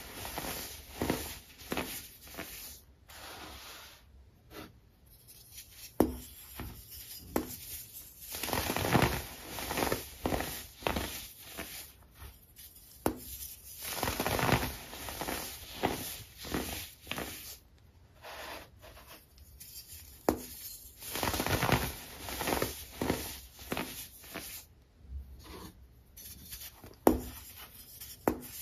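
Compacted baking soda squeezed and crumbled between the fingers, giving repeated soft crunching bursts with quiet gaps between them and a few sharper cracks as clumps break.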